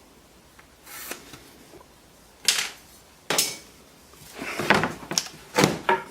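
Workshop handling noises: a run of short knocks and scrapes as wood pieces and tools are picked up, moved and set down, several of them sharp and loud.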